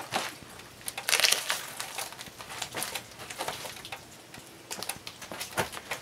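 Irregular scraping, rustling and crunching as a freshly sawn wooden slab is handled and lifted off the log, with a sharp knock near the end.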